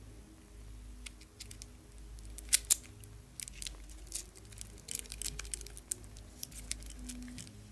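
Irregular small clicks, taps and scrapes of laptop parts being handled and worked on during a battery swap, with two sharper clicks about two and a half seconds in, over a faint low hum.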